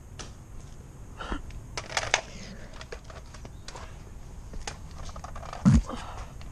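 Scattered light clicks and rattles of something small being handled, with a short low thump near the end.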